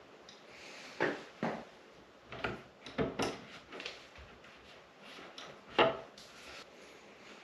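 Scattered sharp knocks and clicks as a metal cabinet-hardware drilling jig and a bar clamp are handled and set against a wooden cabinet door, about seven in all, the loudest near six seconds in.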